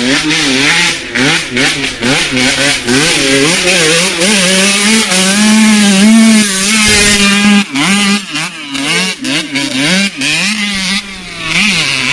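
Motocross bike engine revving hard, its pitch swinging up and down with repeated throttle blips, and held high and steady for a couple of seconds around the middle.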